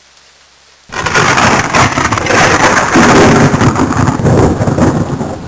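Thunder sound effect: a sudden loud thunderclap about a second in that rumbles on for several seconds and eases off near the end.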